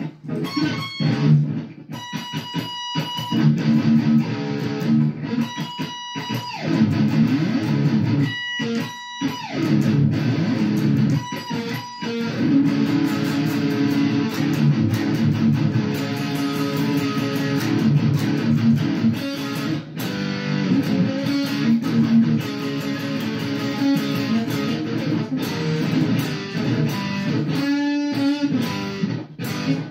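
Electric guitar playing riffs and lead lines, with a couple of brief breaks in the playing about eight and twenty-eight seconds in.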